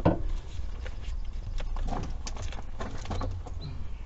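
Irregular knocks and clicks of hand tools working on a Jeep 3.7 V6 engine while its alternator is being removed, beginning with a sharp click, over a low steady rumble.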